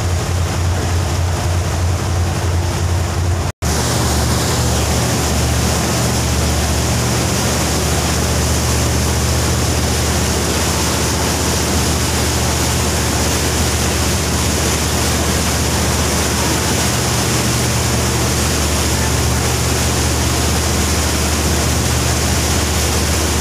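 A river taxi boat's engine running with a steady low drone, under a rush of wind and water noise. The sound drops out for an instant about three and a half seconds in, then carries on unchanged.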